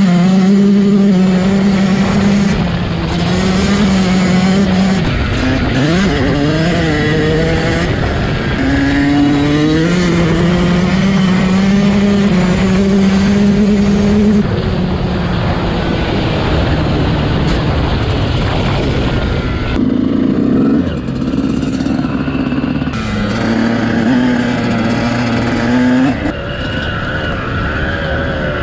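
Yamaha YZ125 single-cylinder two-stroke engine running hard while the bike is ridden, its revs rising and falling with the throttle and gear changes several times.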